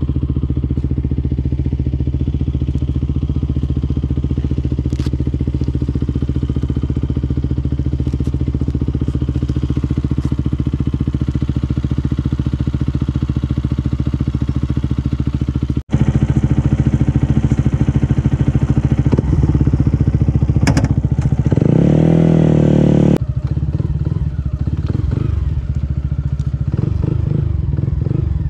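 Yamaha MT-125's single-cylinder four-stroke engine idling steadily through an aftermarket Akrapovic exhaust. After an abrupt cut about halfway, it runs louder, revs up briefly, drops back, then wavers in pitch as the bike pulls away.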